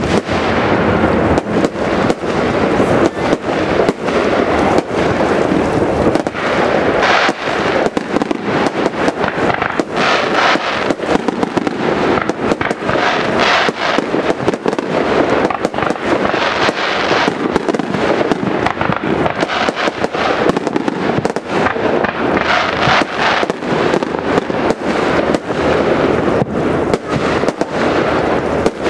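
Aerial fireworks shells bursting in a continuous barrage, with many sharp bangs in quick succession, often overlapping.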